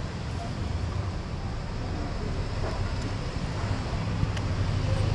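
Steady low street rumble with wind noise on a body-worn camera's microphone, a few faint ticks over it.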